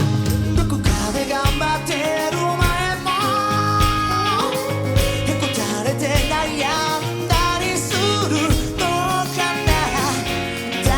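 Live pop-rock band playing: a lead line of bent and held notes over bass and drums.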